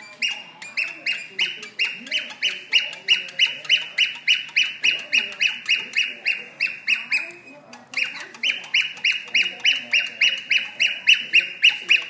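Cockatiel calling in a fast, even run of short, identical whistled notes, about four a second. The run breaks off briefly about seven seconds in, then starts again.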